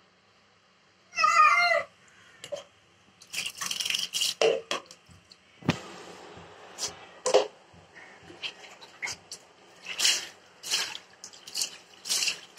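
A cat meows loudly once, about a second in, then a run of short wet splashes and rubbing sounds as it is scrubbed and doused with water.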